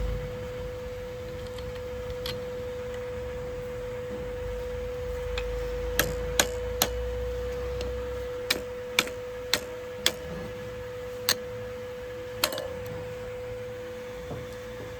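A string of about nine sharp knocks, in small irregular groups from about the middle to near the end, from tools working on a motorcycle during a wheel change. A steady hum runs underneath.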